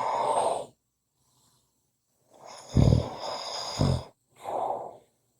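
A person snoring in sleep. There is a breathy exhale at the start, then about halfway in a snore with two loud, rough low rumbles, and a short breath near the end.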